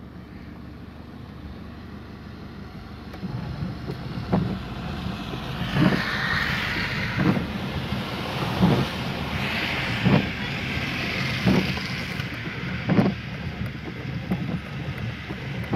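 Inside a car driving in heavy rain: a low engine hum and the hiss of tyres on the wet road, growing louder about three seconds in, with the windscreen wipers knocking at the end of each sweep about every second and a half.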